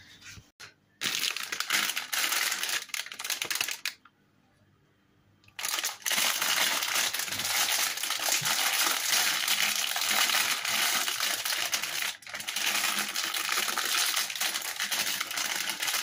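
Plastic instant-noodle packet crinkling and rustling as it is handled and worked open: a short stretch of crackling, a pause of under two seconds, then a long unbroken stretch of crinkling.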